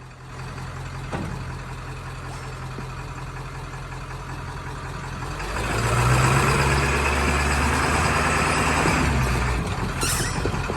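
Ford F-350 pickup's engine running as the truck moves on its 66-inch tires, growing louder about halfway through as it pulls harder.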